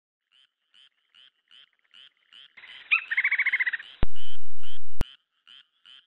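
Forest ambience of animal calls: a short chirp repeating about twice a second, joined partway through by a louder trilling call. Two sharp clicks come about a second apart.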